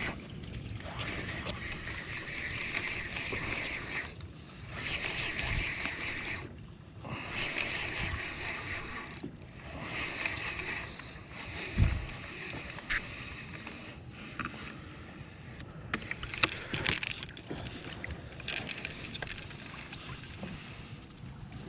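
Fishing kayak moving across open ocean, water rushing along the hull in swells every two seconds or so, with a single low knock about halfway through and a few light clicks of gear later on.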